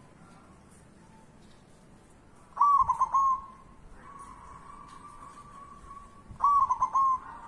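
A dove cooing: two short, loud phrases of rolling notes, about two and a half seconds in and again near the end, with fainter held tones between them.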